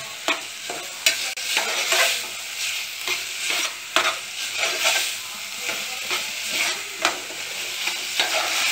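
Soaked moong dal being roasted in oil in a metal pot: a steady sizzle with a spoon stirring and scraping, its strokes giving repeated irregular clicks against the pot.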